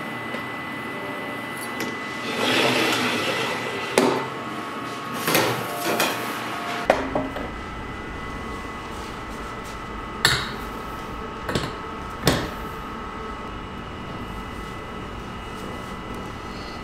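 A knife scrapes and trims the crust off a tree ring cake (baumkuchen) on its metal spit. Scattered sharp metal clinks and knocks against stainless steel follow, three of them spaced about a second apart near the end, over a steady high hum.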